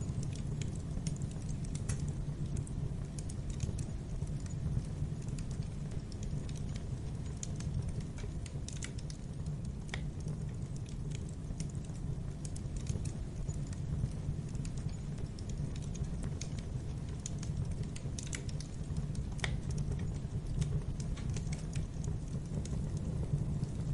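Wood fire burning in a fireplace: a steady low rumble of flame with irregular crackles and sharp pops from the burning logs, a few louder snaps among them.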